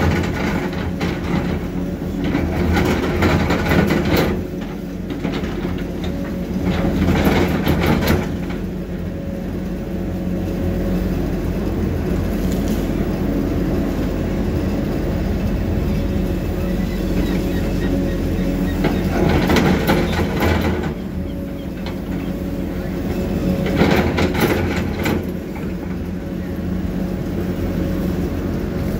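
Heavy construction machinery's diesel engine running steadily, with louder bursts of clatter several times, about every few seconds at first and again twice later on.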